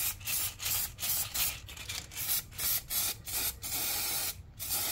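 Aerosol spray paint can spraying in short, quick bursts, about three a second, then two longer sprays near the end.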